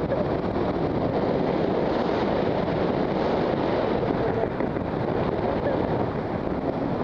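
Steady wind buffeting the camera microphone during a tandem parachute descent under an open canopy.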